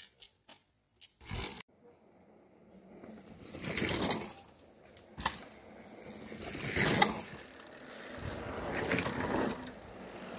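Mountain bike tyres rolling over packed dirt near the camera, a noise that swells and fades several times, with a sharp click about five seconds in.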